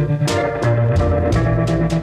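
Background music: an instrumental rock track with electric guitar, bass and drums keeping a steady beat.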